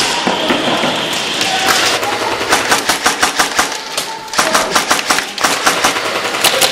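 Airsoft guns firing in rapid bursts: trains of sharp cracks, about six or seven a second, starting about two and a half seconds in, with three bursts separated by short pauses.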